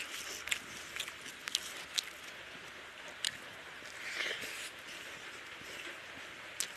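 Close-up eating sounds: fingers squishing and mixing basmati rice with egg curry on a plate, with sharp wet clicks from the mouth while chewing, about every half second at first. A louder squelching rustle comes a little after four seconds, as a handful of rice is squeezed.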